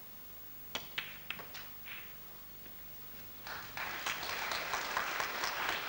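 A snooker shot: a sharp click as the cue tip strikes the cue ball, a louder clack as it hits the object ball a moment later, then a few lighter knocks as the balls run on. About two and a half seconds after the shot the audience starts applauding, the applause swelling and carrying on.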